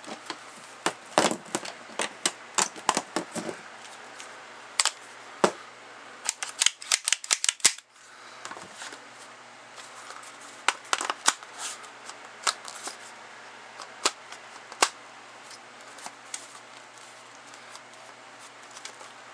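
Sharp clicks and clacks of a plastic drum magazine and gun being handled, as the drum is pushed into a magazine well that it does not fully fit, with a quick rattling run of clicks about six to eight seconds in.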